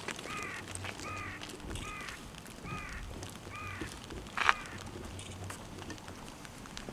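A crow cawing about six times in a row, roughly one harsh caw a second, the last caw the loudest.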